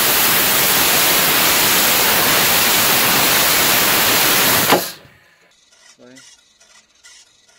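Four small black-powder model rocket motors (two C6-3 and two C2-P) burning together in a static fire: a loud, steady hissing rush of thrust that cuts off a little under five seconds in with a sharp pop. Faint voices follow in the quiet.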